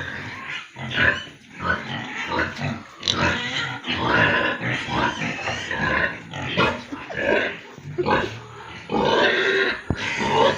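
Several farmed pigs grunting and squealing in a run of irregular calls, with a longer, louder call about nine seconds in.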